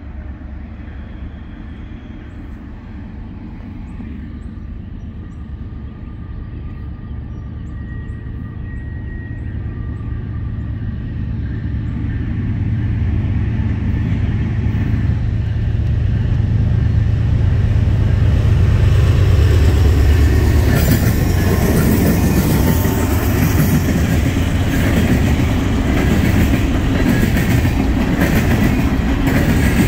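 Norfolk Southern coal train approaching and passing: the low rumble of the diesel locomotives builds steadily to a peak about two-thirds of the way in, then gives way to the clatter of coal hopper cars rolling over the rails.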